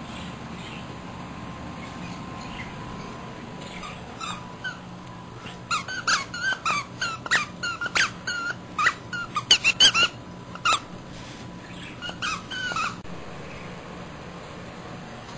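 A squeaker inside a plush frog toy squeaking over and over as a Boston Terrier chews it. The short squeaks come in quick runs, starting about four seconds in, thickest and loudest in the middle, and stopping a couple of seconds before the end.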